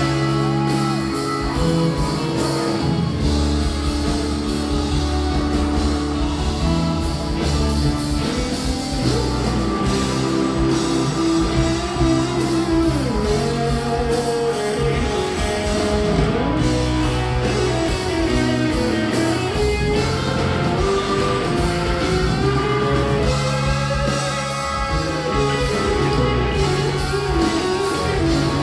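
Live rock band playing, with electric guitars over bass and drum kit.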